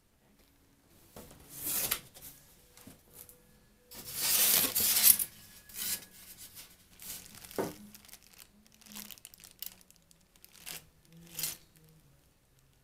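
A cardboard shipping box being opened by hand, then plastic bags and bubble wrap inside it being handled and crinkled. It comes as a series of irregular rustling and tearing bursts, the longest and loudest a third of the way in, with a sharp click a little past halfway.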